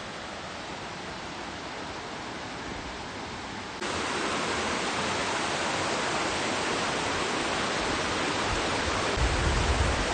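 Steady rush of Stevenson Falls waterfall, running fast after heavy rain. It gets suddenly louder about four seconds in, and a low rumble builds near the end.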